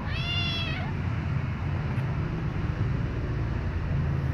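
A white kitten gives one short meow, about half a second long, near the start, over a steady low rumble.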